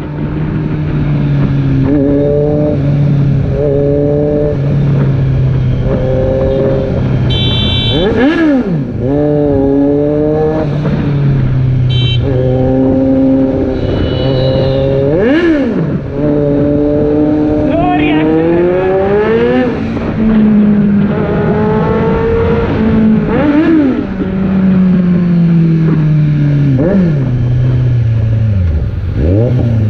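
Kawasaki Z900's inline-four engine breathing through a Race Fit aftermarket exhaust while ridden in traffic. Its pitch rises as the throttle opens and drops back when it closes, over and over, with a few sharp quick rev blips.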